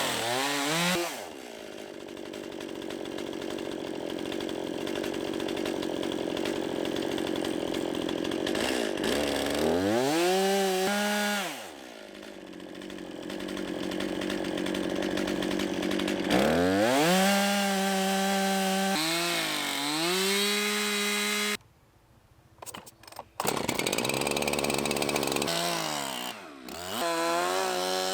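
Chainsaw mill ripping a large log into slabs. The chainsaw runs steadily under load in the cut, and several times revs up and falls back. It breaks off briefly about two-thirds of the way through.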